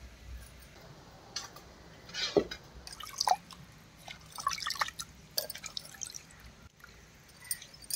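Wet squelching and splashing as a hand scoops ground masala paste out of the hollow of a stone wet grinder (aattukal), with water poured in to rinse out the last of the paste. Short, irregular splashes and drips.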